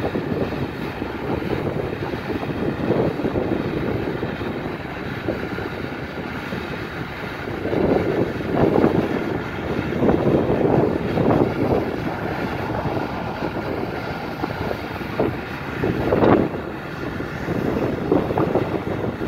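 Diesel engines and rotary brushes of street-sweeping trucks and a tractor working a dry road, a steady heavy mechanical noise that swells in the middle and again near the end.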